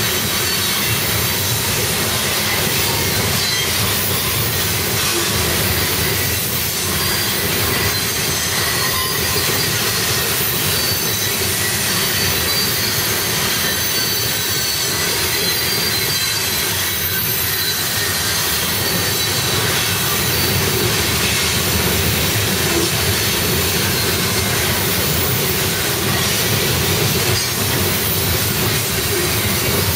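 Loaded CSX coal train's hopper cars rolling past, a steady loud noise of steel wheels on rail, with faint thin high-pitched wheel squeal on top.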